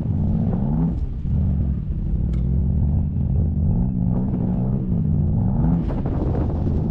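Turbocharged four-cylinder engine of a tuned 2014 Audi TTS running under throttle on snow, its pitch rising and falling several times as the revs go up and down.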